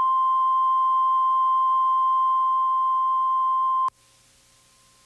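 Steady 1 kHz line-up tone on a broadcast tape's slate, which cuts off suddenly about four seconds in, leaving only faint tape hiss.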